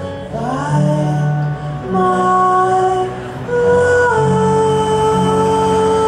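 A live band playing a slow passage of a song with no lyrics: long held notes that step or slide to a new pitch every second or two, over low sustained notes.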